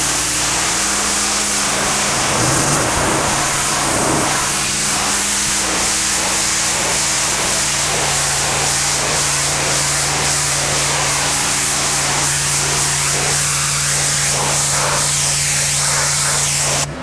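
Simpson AL4240 pressure washer running: its Honda gas engine hums steadily under the loud, continuous hiss of the high-pressure wand spraying concrete.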